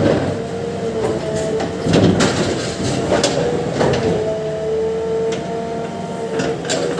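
JCB excavator working, its engine and hydraulics running with a steady whine, while the bucket scrapes and loads a soil and stone mixture, with several sudden crunches and clatters of stones.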